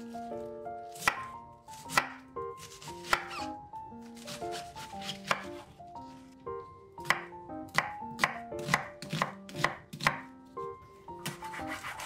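Chef's knife slicing through a head of cabbage onto a wooden cutting board, with crisp, irregular cutting strokes that come faster in the second half.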